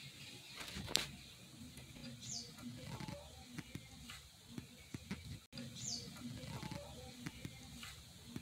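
Steel roller chain of a chain-type oil filter wrench clinking against a spin-on oil filter and the wrench handle as it is wrapped around the filter and tightened: scattered light clicks and rattles, with a sharper click about a second in.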